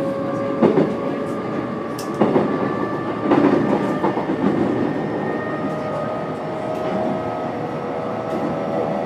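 Cabin sound of an E129 series electric multiple unit running: the Toyo Denki VVVF inverter and traction motors whine steadily over the rumble of the wheels. The wheels clack over rail joints a few times in the first half.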